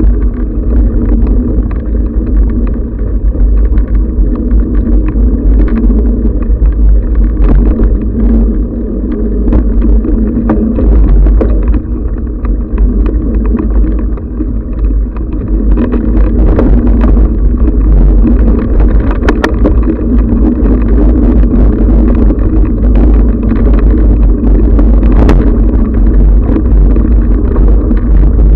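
Mountain bike ride on dirt singletrack heard through a body- or bike-mounted camera's microphone: a loud, steady low rumble of wind and ride vibration, with frequent small rattles and knocks from the bike.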